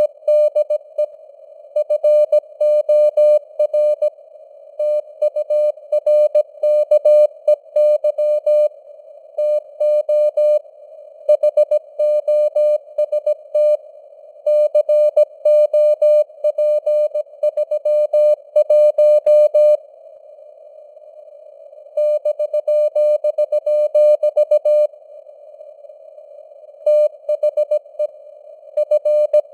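Morse code (CW) keyed at 17 words per minute as a steady mid-pitched beep, dots and dashes over a band of simulated radio hiss, like a ham receiver copying a signal. About two-thirds of the way through, the keying stops twice for about two seconds, leaving only the hiss.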